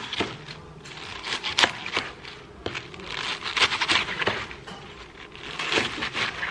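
Chef's knife cutting through a bunch of fresh spinach on a wooden cutting board: crisp crunching of the stems with knocks of the blade on the board, in irregular strokes about a second or two apart.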